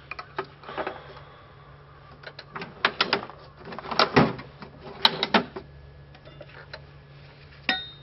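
Irregular clicks, knocks and clanks of metal hand tools being handled, in small clusters, with one short ringing metal clink near the end.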